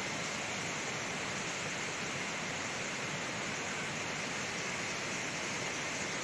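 Waterfall rushing steadily: an even hiss of falling water that does not change.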